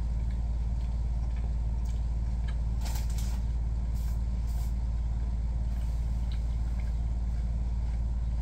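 A steady low hum runs unchanged underneath. Over it, a few faint clicks of someone chewing a mouthful of soft cheese-filled wrap come about three to five seconds in.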